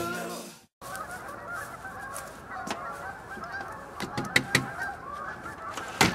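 A dense, steady chorus of many overlapping animal calls, honk-like to the ear. Several sharp knocks come about four seconds in and one more just before the end, like knocking at a door.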